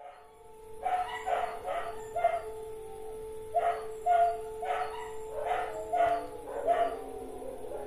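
A dog barking repeatedly over the steady wail of an air-raid siren, which begins to fall in pitch near the end as it winds down.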